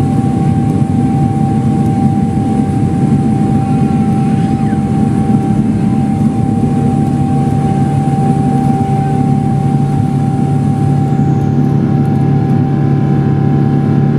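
Boeing 777-300ER's GE90 engines at takeoff thrust, heard inside the cabin: a loud, steady drone with a steady whine above it as the jet rolls down the runway and lifts off.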